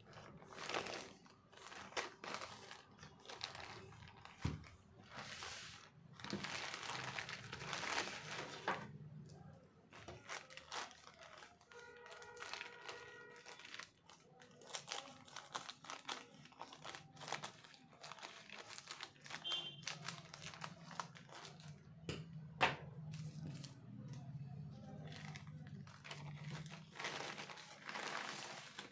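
Plastic and cardboard packaging crinkling and tearing as a phone box is unwrapped by hand, with irregular rustles and clicks.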